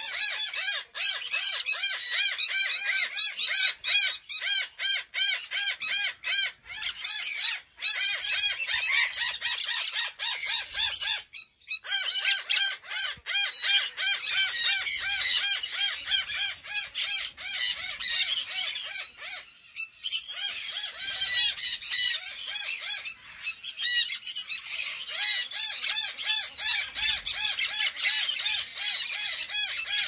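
A flock of conures calling nonstop: a dense, overlapping chorus of high-pitched squawks and chatter, dropping out briefly twice.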